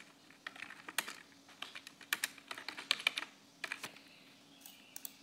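Typing on a computer keyboard: quick, irregular runs of keystroke clicks that thin out to a few strokes near the end.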